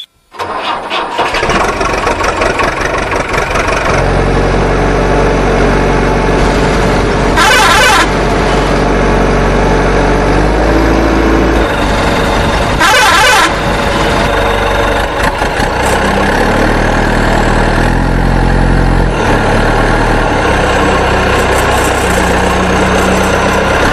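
Truck engine sound effect running steadily, its pitch stepping up and down, with two short louder bursts, one about a third of the way in and one about halfway.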